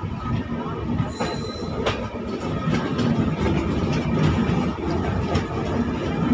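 LHB passenger coaches rolling past close by: a steady rumble of steel wheels on the rails, broken by sharp clicks as the wheels cross rail joints.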